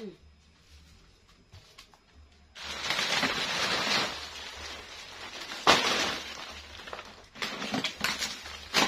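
Dry fried kerupuk crackers rustling and crunching against each other in a large plastic bag, with the plastic crinkling, as the crackers are handled and packed. A dense rustle starts about two and a half seconds in, and there is a sharp crunch near the middle.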